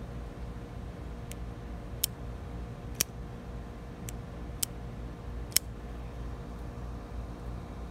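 Fox Suru folding knife worked open and shut by hand: six short, sharp metallic clicks spread over about four seconds as the blade swings and locks, with a steady low rumble underneath.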